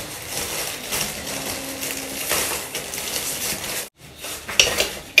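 A plastic packet rustling and crinkling as disposable plates are pulled out of it, then a few sharp clatters of plates being handled near the end.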